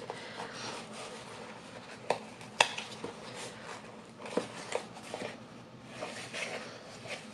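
A shipping box being handled and opened by hand: quiet rustling with scattered sharp clicks and taps, the loudest about two and a half seconds in.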